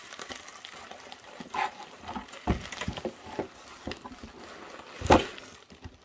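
Bubble wrap crinkling and rustling as hands rummage in a cardboard box, with several knocks of the plastic model-coach cases being handled; the loudest knock comes about five seconds in.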